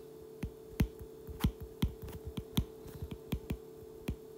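Stylus tip clicking on a tablet's glass screen during handwriting, a few sharp ticks a second at an uneven pace, over a faint steady hum.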